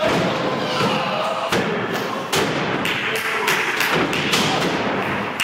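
Wrestlers' bodies and feet slamming onto a wrestling ring's mat: a string of sharp thuds, several in a few seconds.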